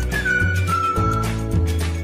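Background music: a high, whistle-like melody in long held notes, stepping down in pitch, over a steady pulsing bass line.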